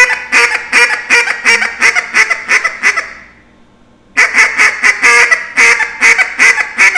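Duck call blown in a 'bouncing hen' sequence: a fast run of quacks, about four a second, that fades away after about three seconds, then a second run starting about a second later.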